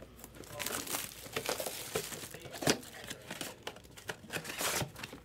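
Clear cellophane shrink-wrap being torn and crinkled off a sealed trading-card box: a dense run of crackling with many sharp snaps.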